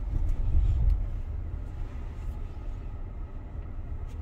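Low, steady rumble of tyre and road noise heard inside the cabin of a Tesla Model Y electric car as it drives, a little louder in the first second.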